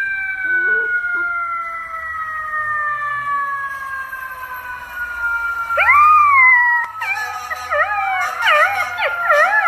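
Dogs howling: one long howl slowly falling in pitch for about six seconds, then a shorter arching howl. From about seven seconds in, several dogs join in with overlapping wavering howls.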